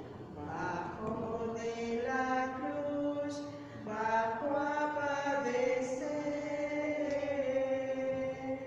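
Slow, unaccompanied liturgical chant, sung in phrases of long held notes: a hymn for the adoration of the cross.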